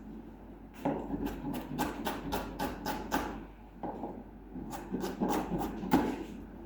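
Kitchen knife fine-chopping on a cutting board: rapid, even knocks about five a second, in two runs with a short pause between them.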